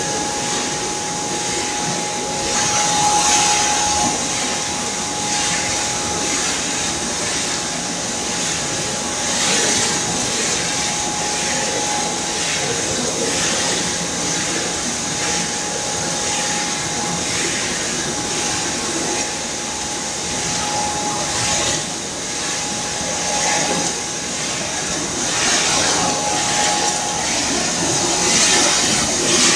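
Palm oil screw press and its fibre conveyor running: a dense, steady mechanical din with a constant whine and hissing surges every few seconds.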